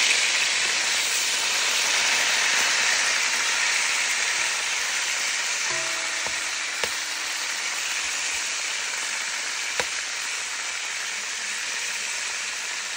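Fish pieces frying in hot vegetable oil in a pot: a steady sizzle that slowly eases off. Two sharp clicks cut through it, about three seconds apart.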